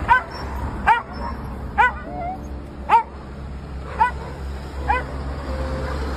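An old, weak dog giving short rising whimpering yelps, six of them about a second apart, over a steady low hum.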